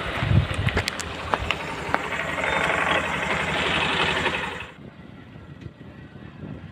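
Motorcycle engine running on a rough, rocky mountain track, with a few sharp stone clicks in the first second or so. It cuts off abruptly about four and a half seconds in, leaving only a faint outdoor background.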